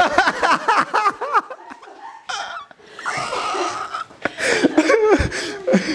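People laughing out loud, mixed with excited talk.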